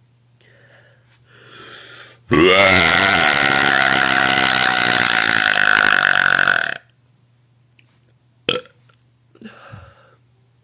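A woman's deliberate, loud burp held for about four and a half seconds, rising in pitch at the start, then holding steady before cutting off. A single sharp click follows about two seconds later.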